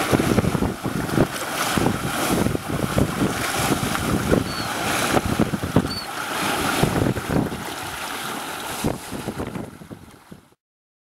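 Water rushing and splashing along the hull and leeboard of a hoogaars, a traditional Dutch flat-bottomed sailing boat, under way in choppy water, with wind buffeting the microphone. It fades out and stops about ten seconds in.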